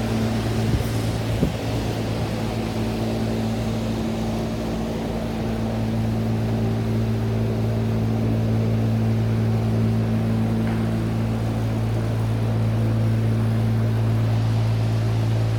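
2006 Trane portable HVAC unit running in air-conditioning mode with its compressors on: a steady low hum with airflow noise. Two brief knocks sound about a second in.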